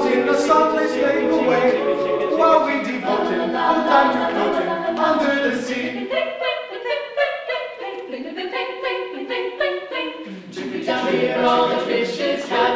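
A mixed a cappella group singing in close harmony, men's and women's voices together with no instruments. About halfway through, the low parts drop out for several seconds, leaving only the higher voices, then come back in near the end.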